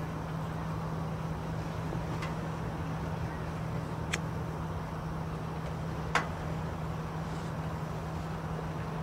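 A steady low hum under a constant background hiss, with three sharp clicks about two seconds apart, the last one the loudest.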